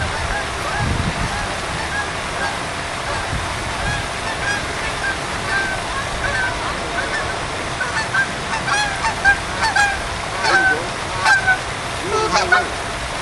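Geese honking in a string of short calls that come faster and louder from about eight seconds in, over a steady background hiss.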